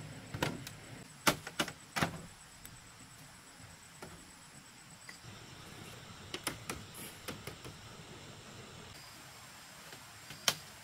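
Split bamboo slats knocking and clattering as they are laid onto a bamboo floor frame and pressed and stepped on: a few sharp knocks in the first two seconds, scattered lighter clicks and creaks in the middle, and one loud knock near the end.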